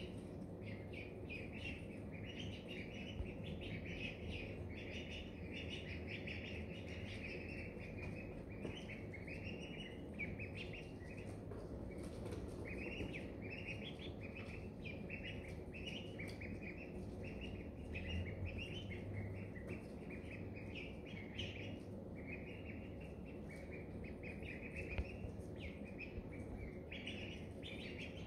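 A group of ducklings peeping constantly, many high-pitched chirps overlapping with only short gaps.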